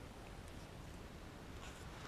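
Faint steady background hiss of outdoor ambience, with a couple of soft ticks.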